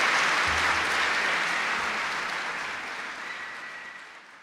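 Concert audience applauding, a steady even clapping that fades out toward the end.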